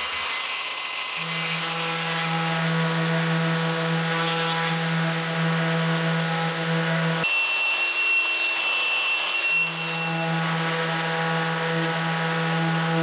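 Festool random-orbit sander with dust extraction running steadily against the rusty steel plate of a Japanese saw, stripping the rust, as a steady motor hum over sanding noise. It follows a brief angle-grinder whine in the first second. The hum's low note cuts out just after seven seconds and comes back near ten seconds.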